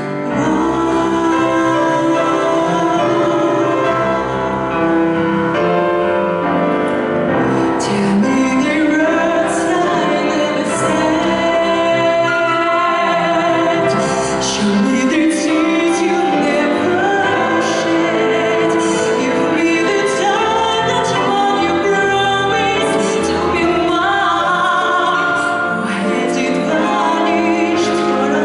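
A woman singing solo into a microphone with grand piano accompaniment, holding long notes with vibrato.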